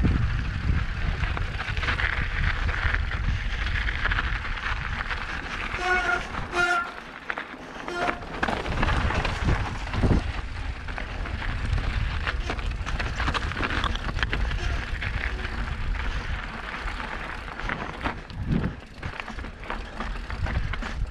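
Mountain bike descending a rocky dirt trail: wind buffeting the camera microphone, with the tyres rumbling and the bike rattling over rock. Short high squeals cut in about six to eight seconds in and again near the end.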